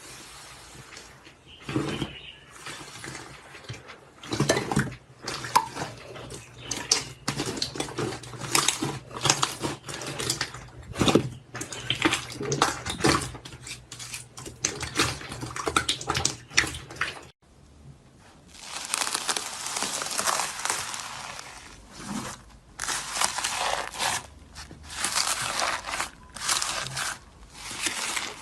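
Slime being squished and worked by hand: quick runs of small wet clicks, pops and crackles. About two-thirds through it cuts to a denser, crunchier crackling.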